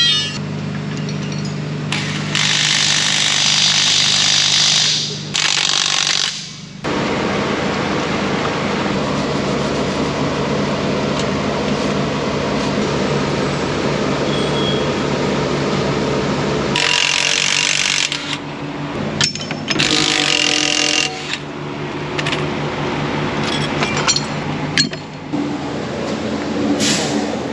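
A machine running steadily with a rapid rattle, broken by several short bursts of hissing.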